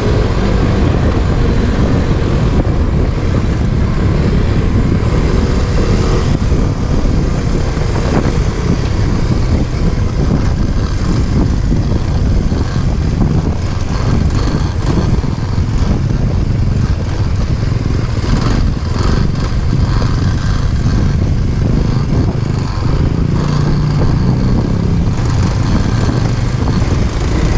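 Off-road motorcycle engine running steadily while riding a rough, stony dirt track, with a dense low rumble and scattered knocks and rattles from the bike jolting over the stones.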